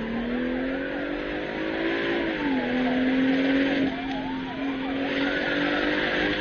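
Car engine accelerating hard, its pitch climbing and then dropping at a gear change about two and a half seconds in, heard from inside the car. A police siren yelps rapidly up and down throughout.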